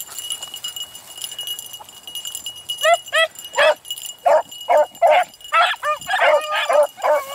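Beagles baying: short, arching, pitched yelps, several a second. They start about three seconds in and come thicker and overlapping toward the end.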